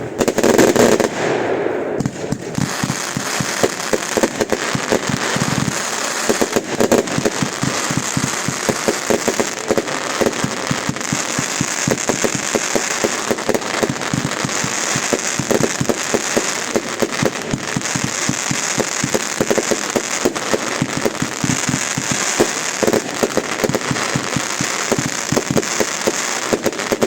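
Fireworks going off without a break: a dense stream of sharp cracks and bangs with crackle.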